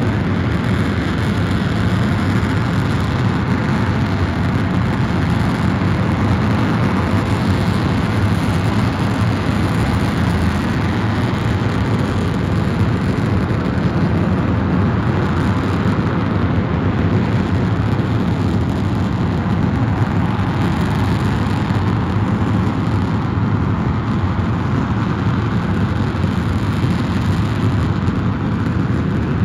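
E-2 LOX/kerosene oxidizer-rich staged-combustion liquid rocket engine (about 22,000 lbf thrust) firing at full thrust on a test stand. Its exhaust makes a loud, steady rushing noise, deepest and strongest in the low range, with no change in level or pitch.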